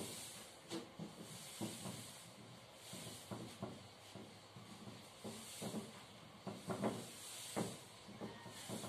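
Cloth duster wiping a whiteboard, a series of soft wiping strokes that swell and fade every second or two.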